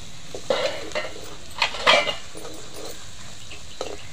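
Steel ladle stirring, scraping and clinking against a steel kadai of frying onion and chilli. There are a handful of scrapes in the first two seconds, the loudest near the middle, and one more near the end.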